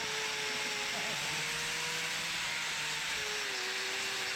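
Handheld electric power tool whining at a steady speed with a strong airy hiss, its pitch sagging slightly about three seconds in.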